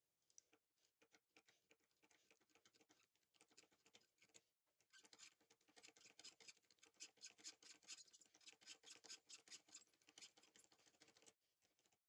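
4 mm hand tap cutting a thread into a brass bar: a faint, rapid run of small clicks and scrapes as the tap is turned, with a brief pause about four and a half seconds in, stopping shortly before the end.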